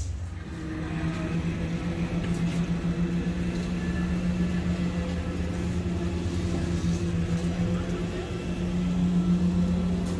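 Engine running steadily at one even pitch, a hum that sets in about half a second in.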